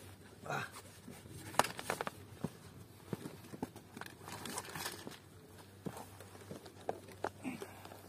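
Rustling and scattered small clicks and knocks from a fabric bag being handled and the camera being moved about, with footsteps on shore rocks.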